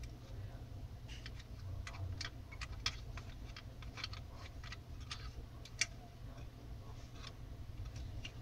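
Light, irregular plastic clicks and taps as the keypad circuit board of an Intelbras TDM300 telephone is handled and pressed into its white plastic housing during reassembly, over a steady low hum.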